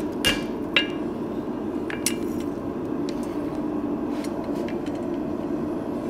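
Light hammer taps and clinks of a hot forged steel bar on a steel anvil, a handful of separate strikes each with a short metallic ring, the two clearest near the start. A steady low hum runs underneath.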